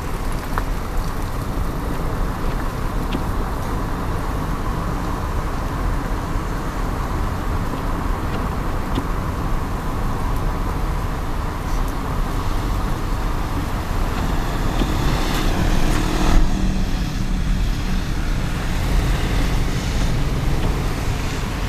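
Steady road and engine noise heard from inside a moving car, with tyres on a wet road. The noise swells to a brief peak about three quarters of the way through, then its hiss drops away.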